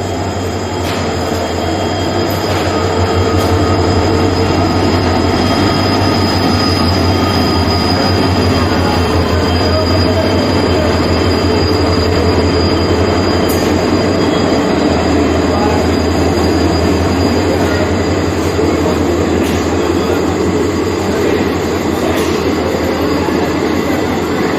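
WDP4 diesel-electric locomotive with its EMD 16-cylinder two-stroke engine running, a steady deep hum with a thin high whine over it. It grows louder over the first few seconds, then holds steady.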